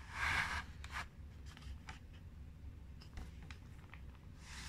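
Pages and cover of a paperback picture book being turned over and closed by hand: a short paper swish at the start, a light tap about a second in, faint ticks, and another swish near the end.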